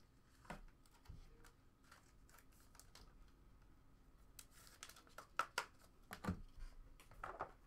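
Faint handling noise of trading cards and their cardboard packaging: scattered light clicks and rustles, sparse at first and busier in the second half.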